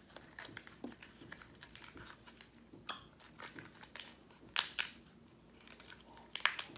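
Close-up eating sounds: chewing and crunching food, with irregular clicks and crackles. The loudest come about four and a half seconds in and again near the end.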